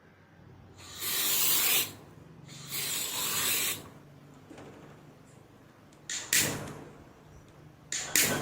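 Aerosol spray can hissing in two bursts of about a second each, followed by a few sharp clicks near the end.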